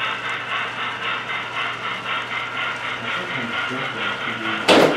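HO scale model freight train of tank cars rolling past on the layout track, a steady rhythmic clatter of about four to five beats a second. A brief loud knock near the end.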